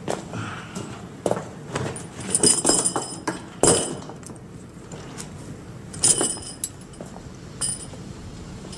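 Metal buckles and fittings on leather harness straps jingling and clinking as they are handled, in several short bursts with scattered knocks between.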